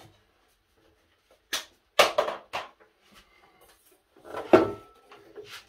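Hollow knocks and clunks of a bench drill press and MDF boards being handled and shifted: a few separate knocks, then a louder clatter a little after halfway.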